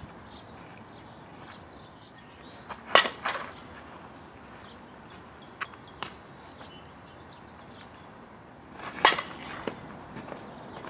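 Two loud, sharp smacks of a softball, one about three seconds in with a smaller one just after it, and another about nine seconds in, over quiet outdoor air.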